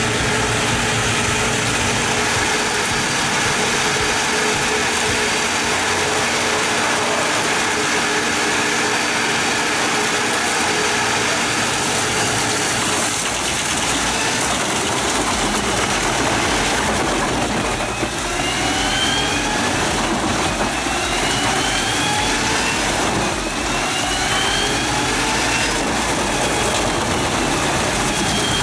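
A heavy machine's engine running steadily under load. From about two-thirds of the way in it revs up again and again in a series of rising sweeps.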